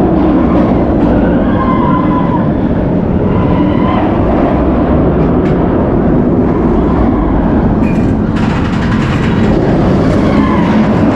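Steel inverted roller coaster train (Bolliger & Mabillard's Montu) running along its track in a continuous loud rumble, turning brighter and harsher about eight seconds in.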